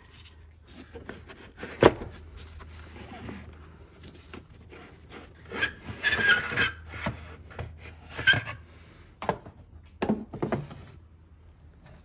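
Plastic engine-bay cover and trim pieces being slid out and handled: a sharp click about two seconds in, then scattered rubbing and scraping of plastic on plastic.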